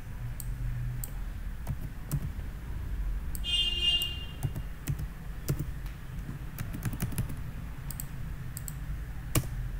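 Computer keyboard keystrokes and mouse clicks, scattered taps over a low steady hum. A brief high-pitched tone sounds about three and a half seconds in.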